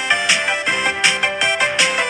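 Background music with a steady beat and bright, bell-like melody notes.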